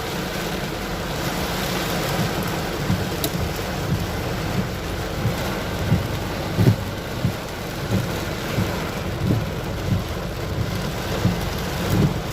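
Heavy rain pouring steadily in a thunderstorm, with irregular low thumps throughout.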